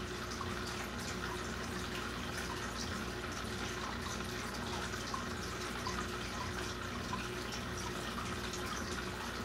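Saltwater aquarium filter and circulating water trickling and bubbling steadily, with small drips and a low steady hum underneath.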